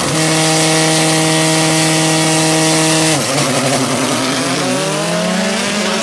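Drag-racing VW Gol engines held at steady high revs on the start line. About three seconds in they launch: the revs dip, then climb steadily as the cars accelerate away, with a drop near the end at a gear change.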